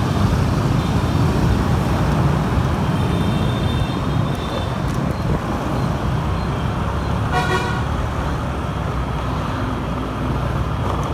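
Motor scooter riding through city traffic: a steady rumble of engine and road noise, with one short beep of a vehicle horn about seven and a half seconds in.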